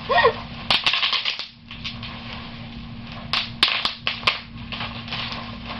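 Bubble wrap popping: two quick runs of sharp pops, about a second in and again a little past the three-second mark, with single pops between.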